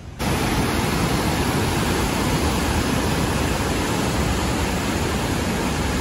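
Steady rush of a fast mountain river running white over boulders, cutting in suddenly just after the start.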